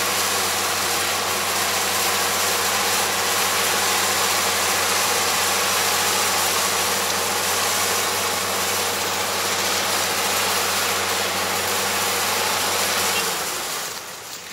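Yanmar AE447 combine harvester running steadily with a low engine hum and machinery hiss, then winding down and stopping about 13 seconds in. The stop is the sudden engine stall caused by straw wrapping around the cutter.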